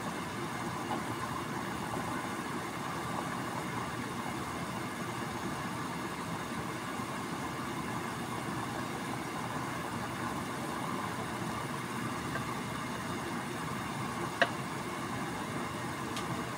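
Water boiling hard in a stainless steel skillet with chicken franks in it, a steady bubbling rumble. One sharp click near the end.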